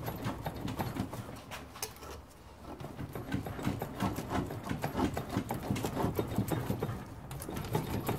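A knife sawing back and forth through the cracked, perished rubber bush on a classic Mini's lower suspension arm held in a bench vice: a quick, uneven run of scraping, knocking strokes.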